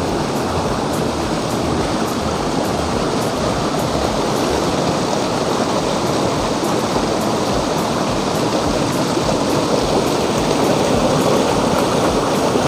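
Steady rush of a forest waterfall and the stream it feeds, an even roar of falling and flowing water.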